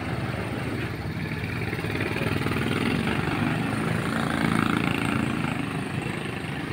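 Small motorcycle engine running close by, its low pulsing growing louder through the middle and easing off near the end.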